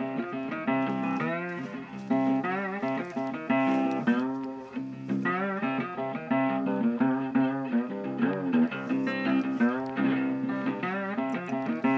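Background music: a plucked guitar tune with bending, sliding notes over a steady low note.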